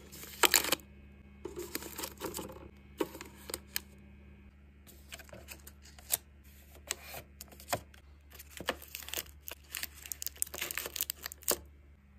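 Snack and drink packages being handled while a mini fridge is restocked: a run of sharp clicks, taps and plastic crinkling, stopping about a second before the end, over a faint steady low hum.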